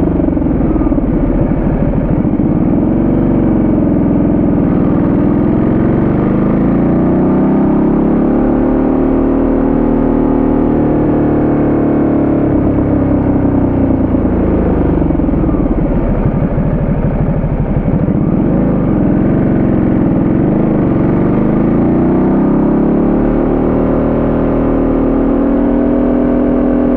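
Ducati Multistrada 1200S V-twin engine under way, its revs climbing and falling several times with the throttle through the bends, over a steady rush of road noise.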